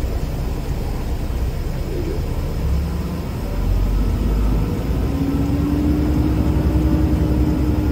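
Semi truck's diesel engine running, heard from inside the cab. The low rumble grows louder about three and a half seconds in as the engine revs up, and a steady whine joins it about a second later.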